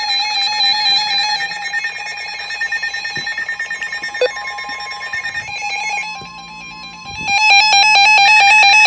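Several NOAA weather alert radios sounding their warning alarms at once: overlapping electronic warbling and beeping tones. About halfway through, a faint steady single tone joins, and near the end a louder, rapid on-off beeping takes over.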